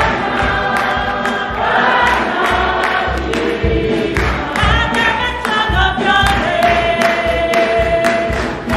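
Church choir singing a lively gospel hymn, with steady hand-clapping on the beat and a low, regular beat underneath.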